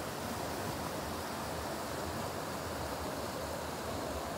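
Steady rush of a rocky mountain stream and a small cascade pouring between boulders into a clear pool.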